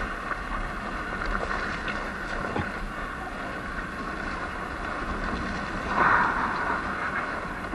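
Steady riding noise from a Sur-Ron Light Bee X electric dirt bike on a rough desert trail: wind on the microphone and the rush of the tyres and the bike over the ground, with no engine note. A few light clicks, and a brief louder rush about six seconds in.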